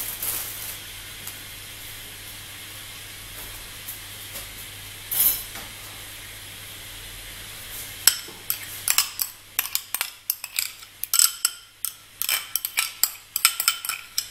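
A metal spoon clinking and scraping against bowls as a thick paste is scraped into a stainless steel mixing bowl: rapid, sharp, irregular clinks starting about eight seconds in, after a stretch of faint steady hiss.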